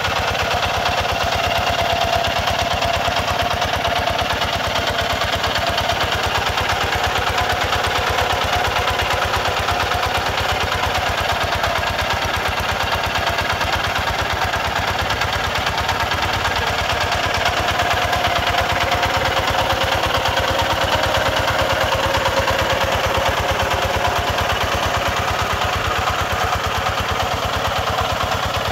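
Kubota RT140 walking tractor's single-cylinder diesel engine running steadily with a fast, even thudding, under load as its cage wheels work through a flooded rice paddy.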